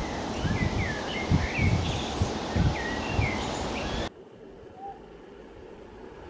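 Outdoor ambience with several small birds chirping over a steady noise bed and low rumbling bumps. About four seconds in it cuts off abruptly to a much quieter background.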